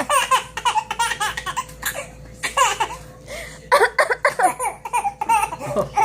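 A person laughing hard in quick, high-pitched pulses, in three bouts broken by short pauses for breath.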